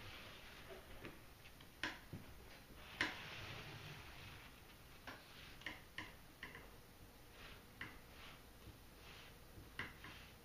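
A hand smearing Mod Podge glue over an assembled cardboard jigsaw puzzle: soft rubbing with scattered light clicks and taps, the sharpest about three seconds in.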